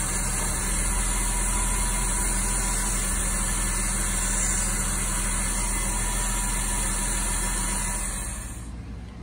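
A Porsche 986 Boxster's flat-six idling under a loud steady hiss, which is taken for a vacuum leak at the intake, while carburetor cleaner is sprayed around the intake duct to find it. The hiss stops near the end and the idle goes on.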